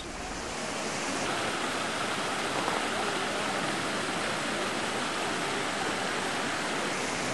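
Large ornamental fountains running: tall jets and arcs of water splashing into their basins make a steady rush of falling water that swells slightly over the first second.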